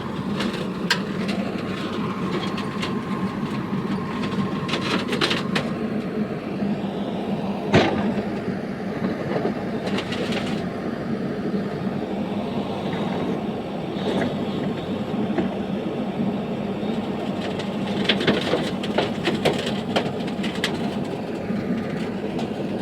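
Heavy machinery running steadily, with scattered clanks and knocks and one sharp knock about eight seconds in.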